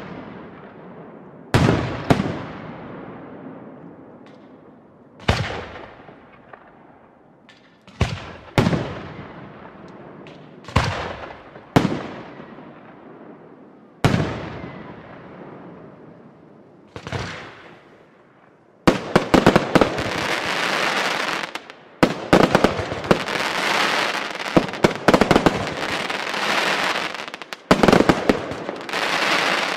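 Aerial firework shells bursting one after another, each sharp bang trailing off in a long echo, a few seconds apart. About two-thirds of the way through this gives way to a dense, continuous crackling barrage of many rapid small reports.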